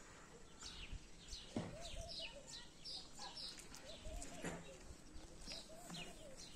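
Birds chirping: many short, high, falling chirps throughout, with a lower run of quick repeated warbling notes from about a second and a half in. A couple of faint clicks.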